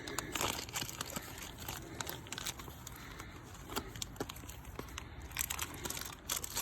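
Packaging being handled and unwrapped: irregular crinkling and rustling with scattered small clicks and taps.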